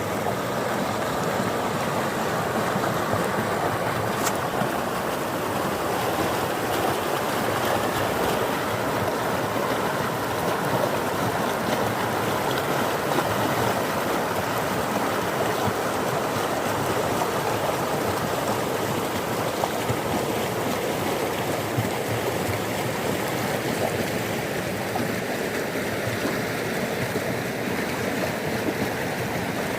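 Fast-flowing floodwater rushing steadily, a dense, even wash of water noise.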